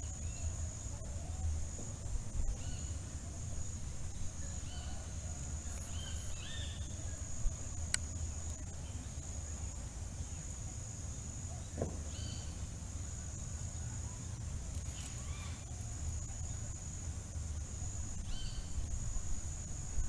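Steady high-pitched insect trill, with short bird chirps every few seconds over a low rumble.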